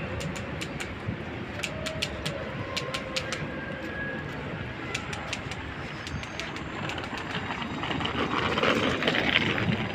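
Busy urban outdoor ambience: a steady traffic hum with sharp clicking footsteps on pavement. A rushing vehicle noise swells and is loudest near the end.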